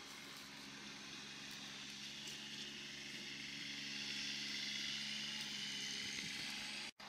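Ride-on greens mower running steadily, a low engine hum under a high whirring hiss that grows louder about halfway through, then breaks off abruptly near the end.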